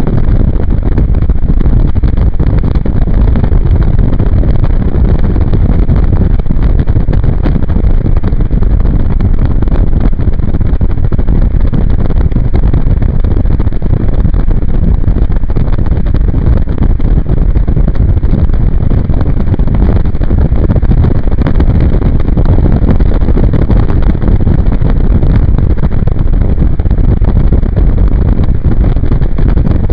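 Steady, loud wind noise buffeting a camcorder's microphone held out the window of a moving Jeep Cherokee XJ, mixed with the vehicle's road noise, as a low, even rumble with no distinct events.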